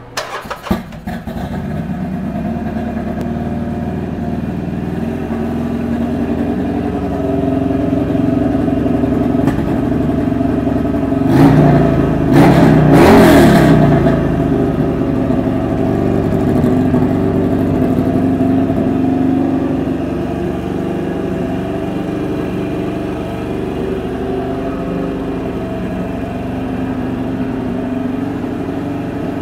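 2009 Harley-Davidson XR1200's air-cooled V-twin starting up and settling into a steady idle, then revved up and down twice about halfway through before returning to idle.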